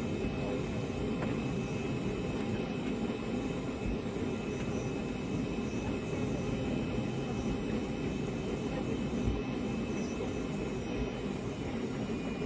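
Steady cabin noise inside a Boeing 757 jet airliner: engine and airflow noise running evenly, with a faint steady whine above it.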